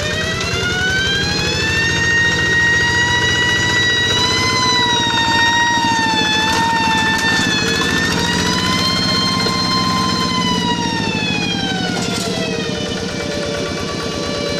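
Rice-field tractor running with a loud high-pitched whine ('nging') over its engine rumble. The whine climbs in pitch over the first two seconds, wavers and holds, then sinks back down near the end.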